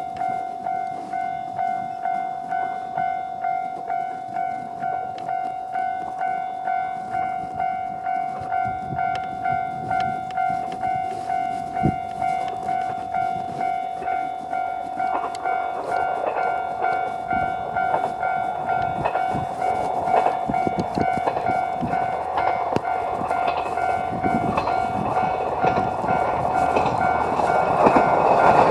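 Japanese railway level-crossing alarm ringing with a steady electronic tone that pulses about one and a half times a second. From about halfway through, the rumble and wheel clatter of an approaching Moka 14 diesel railcar builds up until it is the loudest sound at the end.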